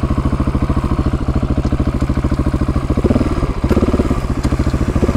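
KTM 690 SMC-R's single-cylinder engine running at low, steady revs with an even thumping pulse. It briefly gets a little louder about three seconds in.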